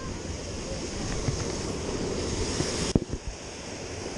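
Steady rush of water pouring over a small canal waterfall, swelling slightly. A single sharp knock about three seconds in, after which the rush is a little quieter.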